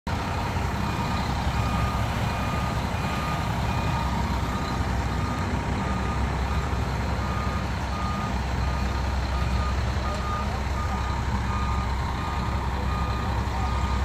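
Concrete mixer truck's engine running steadily, with a backup alarm beeping in an even on-off rhythm.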